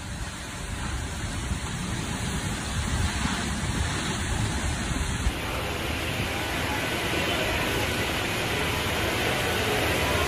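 Heavy storm rain and gusting wind make a dense, rumbling rush. About five seconds in it gives way to a steady rush of rain and fast-flowing floodwater.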